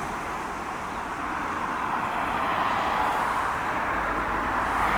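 Road traffic noise: a steady hiss of passing cars that swells toward the end as a vehicle draws near.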